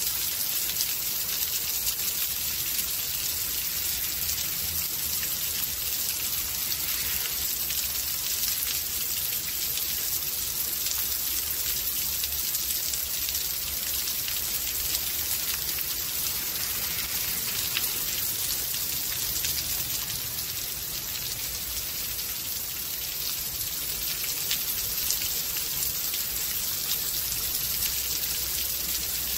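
Rain storm, rain falling steadily: an even hiss dotted with the fine ticks of individual drops.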